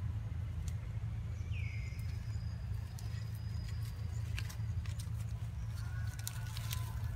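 Outdoor ambience: a steady low rumble with scattered small clicks and rustles, and one short falling chirp about a second and a half in.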